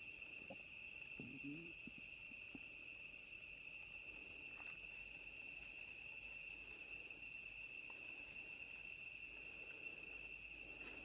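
Faint, steady insect chorus: a continuous high-pitched drone. A few soft rustles and clicks come in the first couple of seconds.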